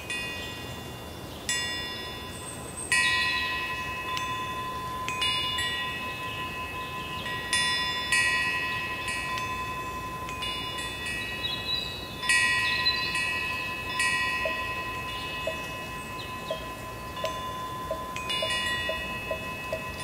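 Korean temple eave bell (pungyeong) swinging in the wind: irregular metallic strikes every second or two, each ringing out in several overlapping high tones.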